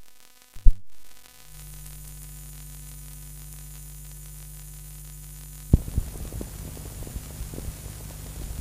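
Steady hum and hiss of an old archival recording, with a click about a second in, a sharp thump a little past halfway, then scattered crackling clicks.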